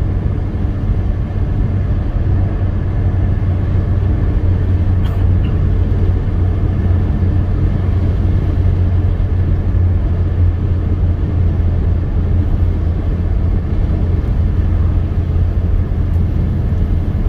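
Steady low rumble of a moving car heard from inside its cabin: engine and tyre-on-road noise while cruising along a paved highway.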